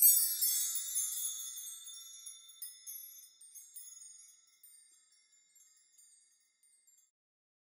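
Chimes ringing: a bright cluster of high bell-like tones struck all at once, then scattered lighter strikes, dying away over about seven seconds.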